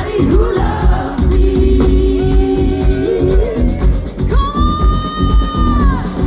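Live Schlager pop song played loud through a PA: a woman's voice holds long sung notes over a steady, pounding dance beat.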